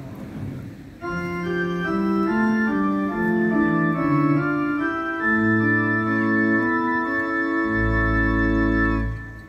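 Organ playing a hymn introduction in slow held chords, with a bass line joining about halfway and a very deep bass note near the end before it stops. It is heard through outdoor public-address loudspeakers.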